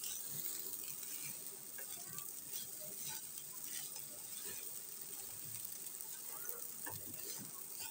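Wooden spatula stirring sabudana khichdi in a kadhai over a low flame: light scraping against the pan with scattered soft ticks over a faint, steady sizzle from the ghee.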